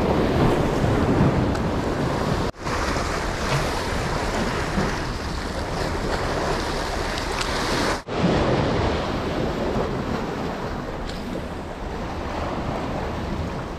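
Sea waves surging and breaking against the concrete blocks and rocks of a jetty, a steady wash of surf. It drops out for an instant twice.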